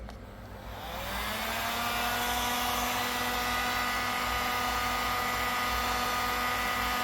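Heat gun switched on about a second in: its fan motor spins up with a rising whine, then runs steadily with a hiss of blowing air while heating an airsoft pistol's CO2 magazine.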